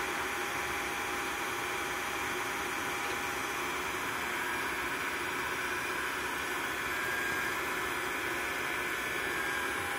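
Steady rushing noise with a faint motor tone from a shop vacuum driving wood gas up a homemade gasifier's flare pipe, mixed with the hiss of a propane torch burning at the pipe's mouth.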